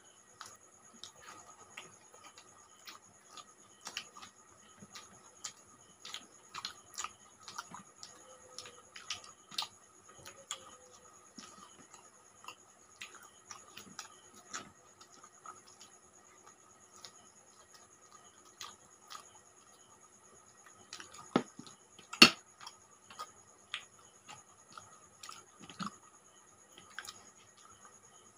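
Close-miked eating by hand: scattered small wet clicks and smacks of mouths chewing and fingers mixing rice and curry on plates. A sharper click comes about 21 to 22 seconds in, over a faint steady high tone.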